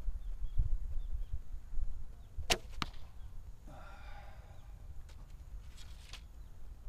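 A 45-pound Gayagung Firefox bow being shot: a sharp crack of the string on release about two and a half seconds in, a second click just after it, then a few fainter clicks. A low wind rumble on the microphone runs underneath.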